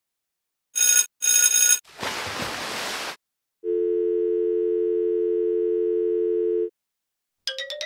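A string of sound effects. First come two short brassy blasts, then about a second of hiss. After that a steady telephone dial tone plays for about three seconds, and just before the end a rising, ticking glide begins.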